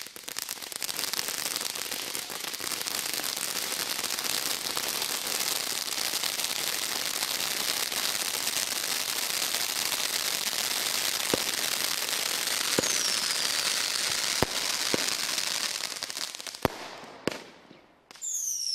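Moscow Blizzard firework burning with a continuous dense hissing crackle, with a few sharp cracks and one short falling whistle in its last seconds, then dying away. Right at the end a new burst begins with falling whistles.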